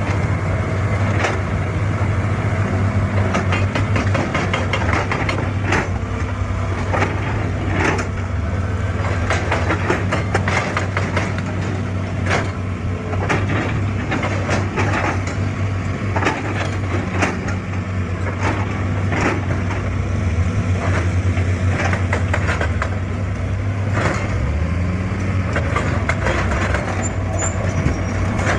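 Excavator's diesel engine running steadily, with many irregular sharp knocks and cracks over it.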